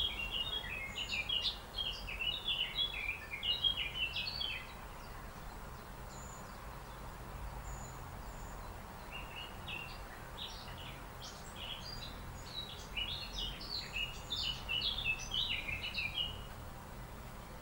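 Bird song: rapid runs of high chirps in two bouts of several seconds each, one at the start and one from about nine seconds in, with a pause between. A steady low background rumble runs beneath.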